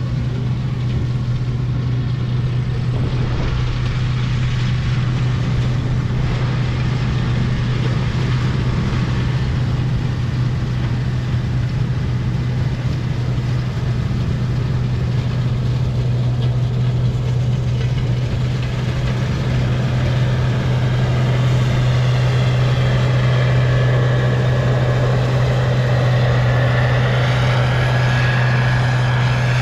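Large farm machine's engine running steadily, a deep constant drone. A faint higher whine joins it after about twenty seconds.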